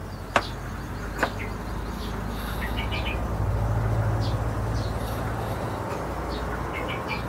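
Small birds chirping in short bursts in the background. Two sharp clicks come near the start, and a low hum swells through the middle.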